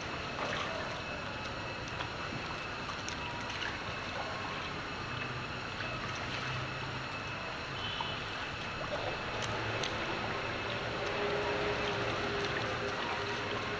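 A steady background rumble with light splashing and sloshing of water as long-tailed macaques wade and jump in a shallow puddle. A few short splashes stand out, and it gets slightly louder near the end.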